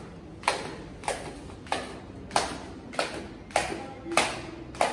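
Footsteps going down tiled stairs at a steady walking pace: eight sharp taps, one step about every 0.6 seconds, each with a short echo off the stairwell.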